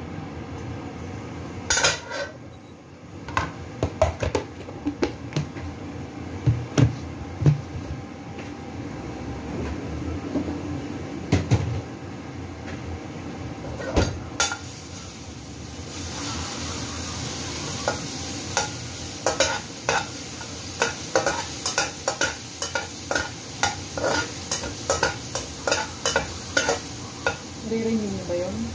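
A metal spatula knocking and scraping in a wok as garlic is tipped in from a bowl. From about halfway through the pan sizzles as the garlic fries, with the spatula clicking against the wok about twice a second as it is stirred.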